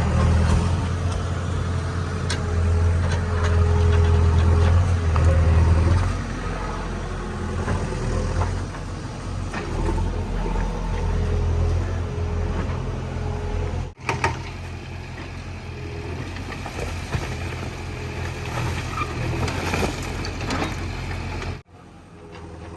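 JCB 3DX backhoe loader's diesel engine running, its note swelling and easing with the load, with scattered knocks and clatter from the work. The sound breaks off abruptly about 14 seconds in and again near the end.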